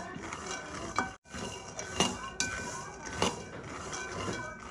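Shelled peanuts being stirred and roasted in a metal wok with a wooden spatula: the nuts rattle and the spatula scrapes against the pan in repeated strokes.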